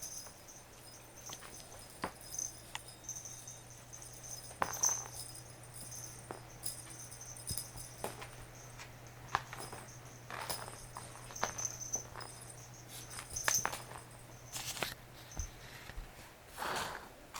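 Scattered light taps, clicks and rattles from a cat batting clumsily at a toy. A faint low hum runs underneath and stops near the end.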